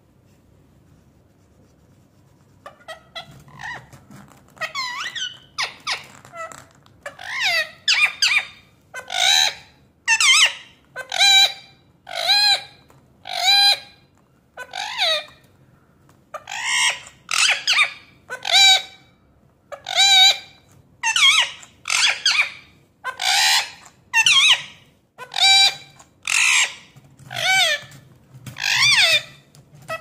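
Indian ringneck parakeet calling over and over: a run of short, loud, high-pitched screeches, about one a second, starting a few seconds in.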